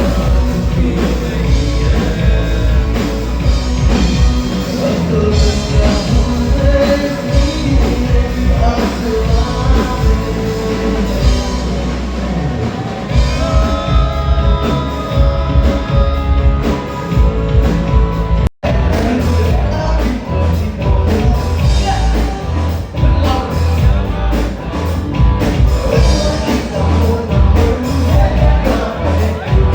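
Background music: a rock song with singing over a steady drum beat, with a short break about 18 seconds in.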